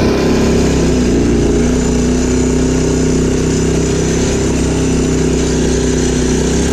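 ATV (quad bike) engine running while the quad is ridden at a steady pace, giving a steady engine note with little change in pitch.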